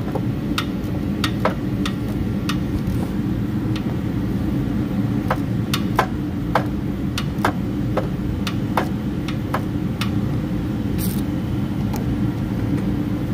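Irregular sharp metallic clicks and taps, about one or two a second, from a wrench working a water pump bolt, over a steady low rumble.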